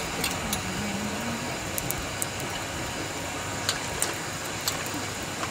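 Steady background noise with a few light, sharp clicks of aluminium idli steamer plates being handled.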